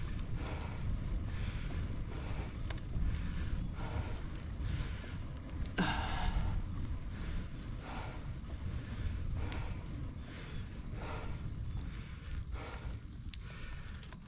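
Cyclist breathing hard in a rhythm, about one breath a second, while pedalling up a steep hill, over the low rumble of wind on the microphone. A steady high-pitched insect drone runs underneath.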